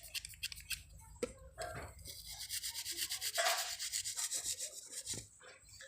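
Bicycle disc brake pad being scrubbed by hand to wash out fork oil that has soaked into it, rapid back-and-forth rubbing strokes that grow busier about two seconds in.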